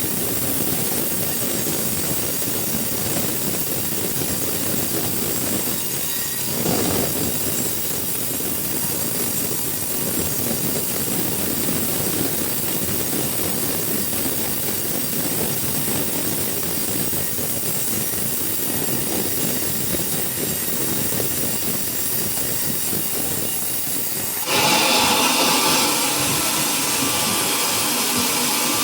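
Sawmill machinery running steadily with a loud, even rushing noise. About 24 seconds in, the sound changes abruptly to a louder, higher whine.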